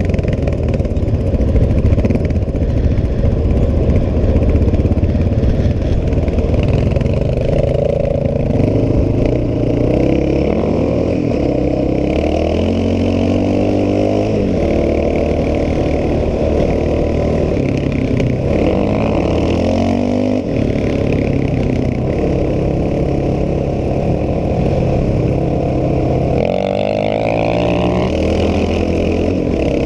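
ATV engine running hard on a dirt track, heard up close from the machine, climbing in pitch three times as it is revved up through the gears, over wind and rattle.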